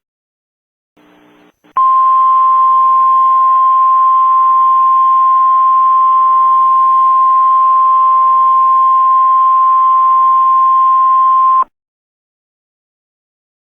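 NOAA Weather Radio 1050 Hz warning alarm tone: a single steady beep starts about two seconds in and holds for about ten seconds over a faint hiss, then cuts off suddenly. It is the signal that an emergency alert message follows.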